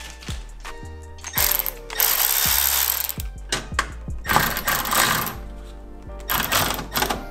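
Cordless electric ratchet running in bursts as it drives the grille's mounting bolts snug: one run of well over a second, then two short ones, with light clicks between. Background music plays underneath.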